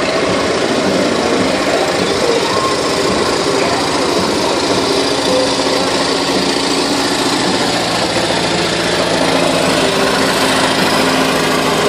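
Monster truck's engine running steadily as the truck drives slowly, with a fast even pulse.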